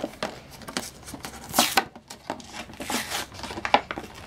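Hands working open a toy's plastic blister pack on its cardboard backing card: irregular crinkles, crackles and taps of stiff plastic and card, with a louder crackle about a second and a half in.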